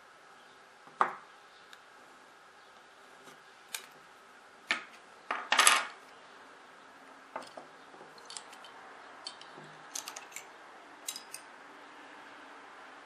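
Small hard objects clicking and knocking as they are handled and set down on a wooden table: bone stamp blanks and a wooden folding ruler. Separate clicks come first, the loudest clatter comes just before the middle, and lighter ticks follow.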